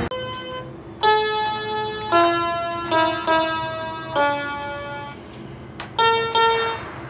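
Music: a slow melody of held notes, a new note starting about every second.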